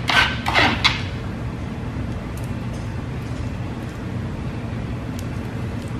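Chopped celery being scooped off a plastic cutting board, a few brief scraping strokes in the first second, then only a steady low background hum with faint ticks as the pieces are sprinkled over the salad.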